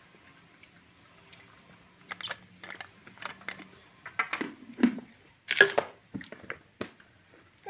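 Close-up chewing and crunching of crisp food, a string of short irregular crunches, the loudest a little past halfway.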